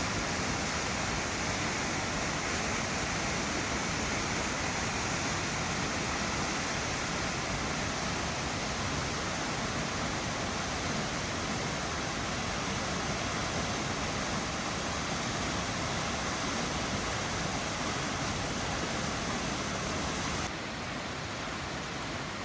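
Steady rushing roar of South Falls, a 177-foot waterfall on South Fork Silver Creek. About twenty seconds in it becomes a little quieter and less hissy.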